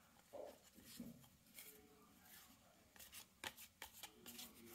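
Faint handling of Panini Contenders basketball trading cards being thumbed through and slid from hand to hand, with a quick run of sharp card flicks about three seconds in.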